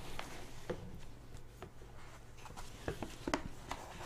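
Papers being shuffled and a book opened: soft paper rustles with a scatter of small clicks and taps, a few sharper ones about three seconds in.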